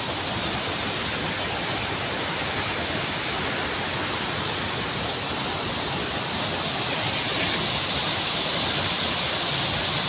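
Rushing water of a fast, rocky stream and waterfall, a steady roar of white water that grows a little louder near the end.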